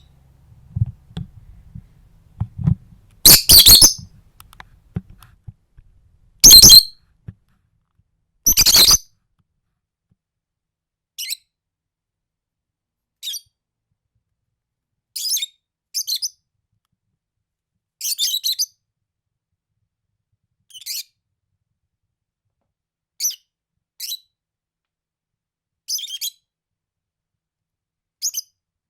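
Pet birds calling close to the recorder: three very loud, harsh squawks in the first nine seconds, then shorter high-pitched chirps every second or two.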